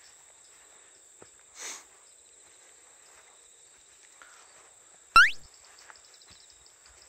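Insects shrilling steadily in a high, even tone, with a brief rustle about two seconds in. About five seconds in, one loud, short squeak that sweeps sharply upward in pitch.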